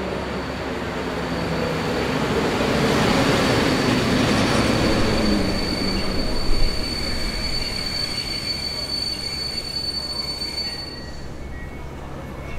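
Passenger train pulling in along a station platform: the rumble of the coaches swells to a peak, with a steady high squeal as it brakes and one sharp clank partway through. The squeal cuts off and the sound drops as the train comes to a stop near the end.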